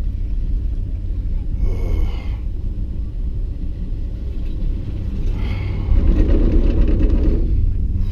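Steady low rumble of a ride on an open chairlift, wind and lift noise together, growing louder for about a second and a half near the end.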